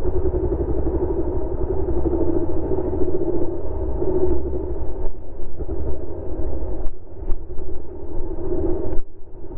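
Honda CRF250R's single-cylinder four-stroke engine running under throttle, its level swelling and easing as the throttle is worked. A few sharp knocks in the second half; the engine sound dips briefly just before the end.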